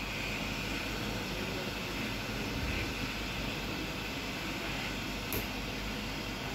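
Hot-air rework gun blowing a steady hiss of air while it heats the solder joints of a USB port on a circuit board to lift the port off. A single short click about five seconds in.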